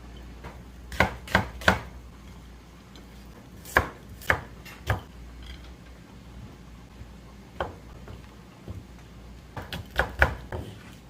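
Kitchen knife chopping on a cutting board: sharp, irregular knocks in small groups of two or three, with pauses between.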